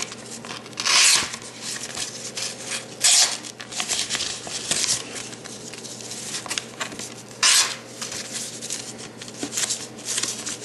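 The small blade of a Victorinox Classic SD pocket knife slicing through a sheet of paper: three louder short cuts, about a second, three seconds and seven and a half seconds in, with paper rustling and crackling between them.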